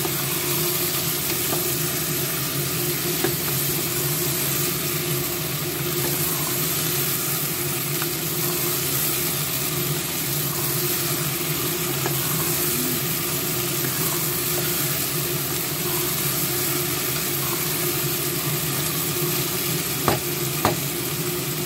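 Chicken pieces sizzling as they fry in a pot with oyster sauce, stirred with a wooden spatula, over a steady low hum. A few sharp knocks of the spatula against the pot, one a few seconds in and two close together near the end.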